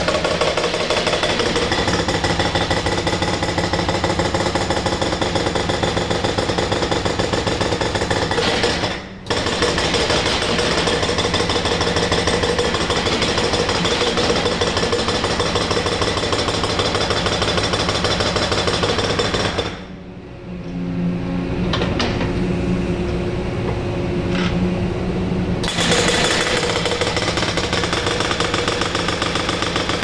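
Excavator-mounted hydraulic breaker pounding a concrete floor in rapid, continuous blows. It stops for a moment about nine seconds in, and for about six seconds near two-thirds of the way through, when only the excavator's engine is heard humming steadily. Then the hammering resumes.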